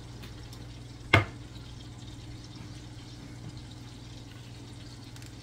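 Sausages frying in oil in a stainless steel pan, a steady sizzling hiss, with one sharp knock about a second in.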